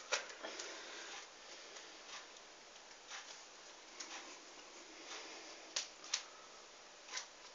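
Playing cards being handled for a trick: scattered soft clicks and snaps over a faint hiss, with a few sharper snaps about six seconds in.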